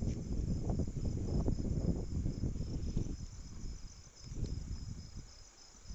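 Crickets chirping steadily in a fast pulsing trill, over a low rumbling noise that dies down in the last couple of seconds.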